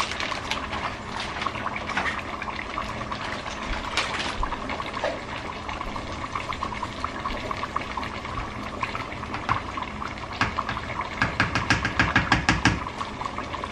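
Pot of water with lasagna noodles boiling steadily, a bubbling hiss. Near the end, a utensil clicks rapidly against a bowl as the cheese mixture is stirred.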